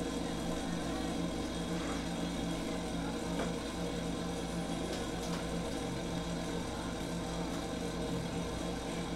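Steady hum of a window-type air conditioner running.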